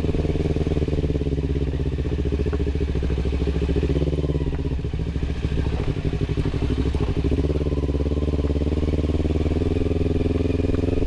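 Kawasaki Ninja 250 FI parallel-twin running through a DX Generation RVR short aftermarket exhaust, giving a smooth, bassy note. The engine speed stays fairly steady, with slight shifts about four and eight seconds in.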